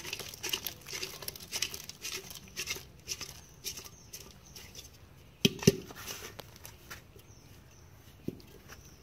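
Small live fish tipped into a metal bowl, flapping and slapping against it in a rapid patter of clicks. Two sharp knocks come about five and a half seconds in, and one more a little before the end.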